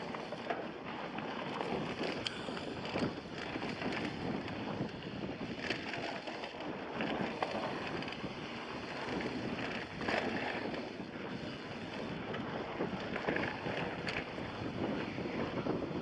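Mountain bike rolling along a dirt trail: a steady rush of tyre noise and wind across the microphone, with scattered short clicks and rattles from the bike.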